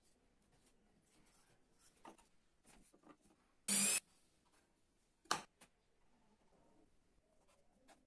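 Handling noises of a carved wooden model car on a table: light knocks and rubs of wood, with one short loud scrape about three and a half seconds in and a sharp knock a little past five seconds.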